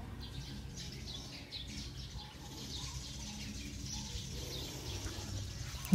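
Birds chirping and calling, many short faint chirps over a low steady background hum.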